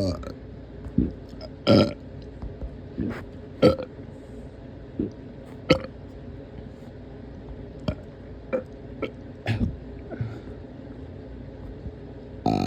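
A person burping repeatedly: about a dozen short burps at irregular gaps of roughly half a second to two seconds, the loudest around two and four seconds in.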